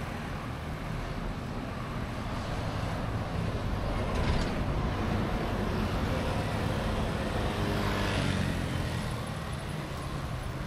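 Road traffic passing close by: cars and motor scooters driving past, swelling as vehicles go by about four seconds in and again around seven to eight seconds.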